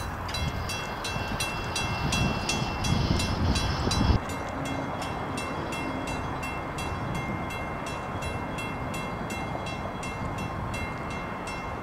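Grade-crossing warning bell ringing steadily at about three strokes a second. Under it a low rumble and hiss run for the first four seconds and then stop abruptly, while the bell rings on.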